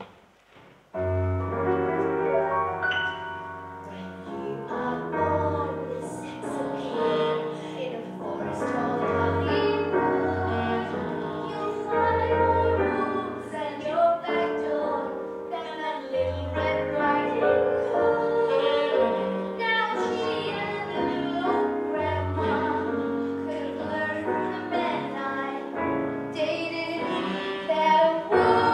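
Music: a musical-theatre backing track with piano and a low bass line starts about a second in and plays on steadily.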